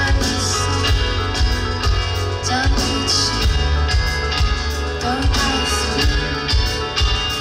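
Live rock band playing: guitars over a heavy bass line, with regular drum kit hits.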